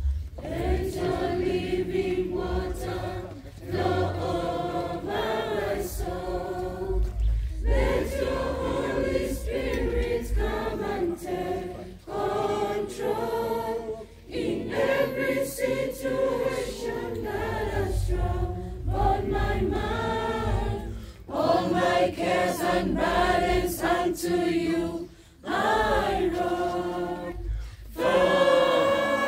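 A choir of school students singing a hymn together, in sung phrases broken by brief pauses for breath.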